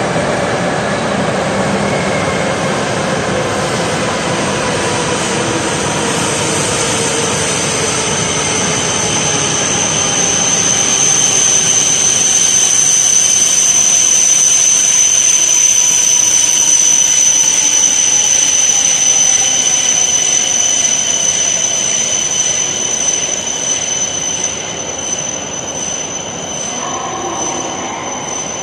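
E5 series Shinkansen train pulling into a station and slowing down. Its motor whine falls in pitch as it brakes. A steady high squeal from the wheels and brakes is loudest as the cars pass, then the sound eases off near the end.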